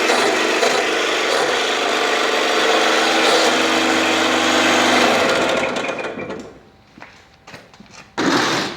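Motor of a Lego-brick press machine running steadily, then winding down and stopping about six seconds in. A brief loud noise follows near the end.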